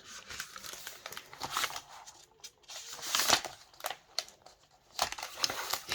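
Paper pages of a picture book being handled and turned: a run of short rustles and brushes, the strongest about one and a half, three and a half, and five and a half seconds in.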